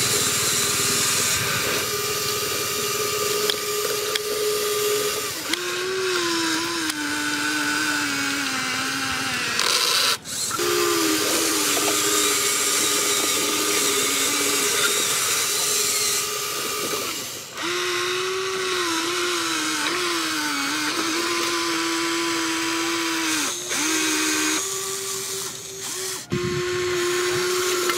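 Electric motors and gearboxes of a remote-control toy excavator whining as it works, the pitch holding, then sagging and rising again as the motors load up and ease off. It breaks off briefly a few times.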